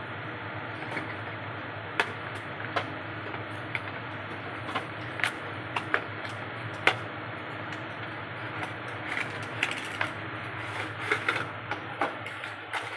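Irregular clicks and short crackles of an earphone retail box and its plastic tray being handled and opened, over steady background noise.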